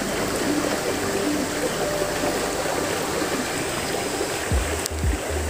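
Steady rush of stream water flowing from a culvert outlet, with a few low bumps and a sharp click near the end.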